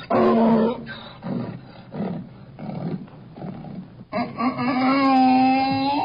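Donkey braying: a loud call at the start, a run of quieter, lower rhythmic notes, then a long drawn-out call from about four seconds in.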